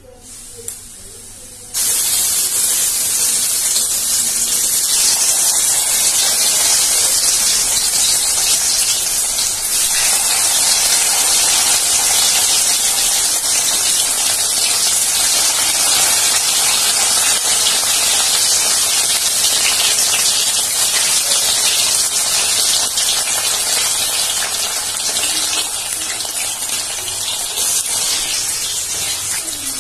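Paneer cubes frying in hot refined oil in a kadai: the oil breaks into a loud, steady sizzle about two seconds in as the first cubes go in, and keeps sizzling as more are added, a little quieter near the end.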